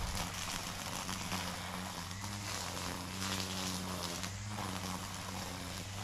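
Weed eater (string trimmer) running steadily and cutting through brush, its motor holding a constant pitch under the whirring hiss of the cutting line, which surges and eases and dips briefly about four seconds in.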